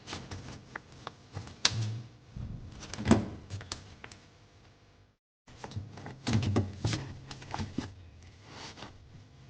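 A run of clicks, taps and knocks from containers and lids being handled in a kitchen, the sharpest knock about three seconds in, with a short break about five seconds in.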